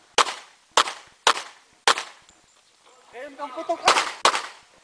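Semi-automatic pistol fired in a practical-shooting course of fire. Four shots come about half a second apart, then after a pause of about two seconds two more shots follow close together.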